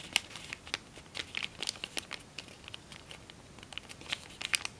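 Sheet of tissue foil (tissue paper laminated to foil) crinkling and crackling in irregular small clicks as fingers open a folded origami model and reverse a crease from valley fold to mountain fold.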